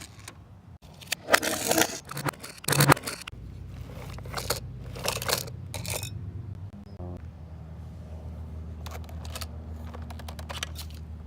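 Plastic toys being handled, with irregular scrapes and clicks over the first half, then a steady low hum from about seven seconds on.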